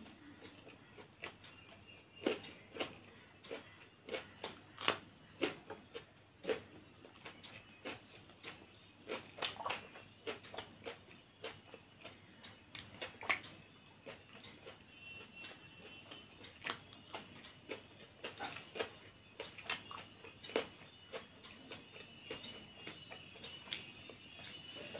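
Close-up eating sounds of a person eating a rice meal by hand: irregular sharp, wet clicks and smacks of chewing, with fingers mixing rice on a ceramic plate.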